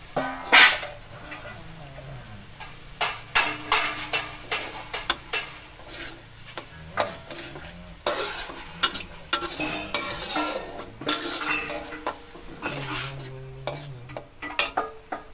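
Plastic spatula scraping and knocking against a metal wok in irregular strokes as spice paste is stir-fried, with the paste sizzling in the oil.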